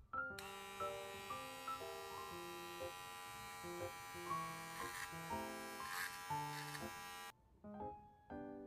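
Small cordless electric pet paw trimmer buzzing steadily as it trims the fur between a dog's paw pads, then cutting off abruptly about seven seconds in.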